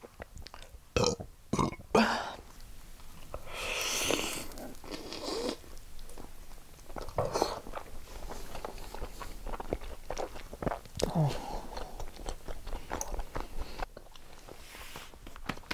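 A person biting into a slice of pizza and chewing it with small crunching clicks, after a few sharp knocks in the first two seconds.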